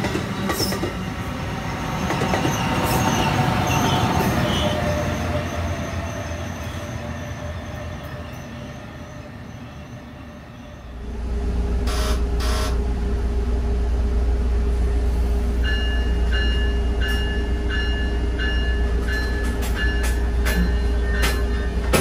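Bombardier ALP-46 electric locomotive with its train passing: rail and wheel noise mixed with gently falling inverter tones, swelling and then fading as it pulls away. Then, heard from the vestibule right behind the locomotive, a steady heavy rumble with a steady whine from its GTO-thyristor VVVF traction inverter. From about halfway through a short high tone repeats about every half second.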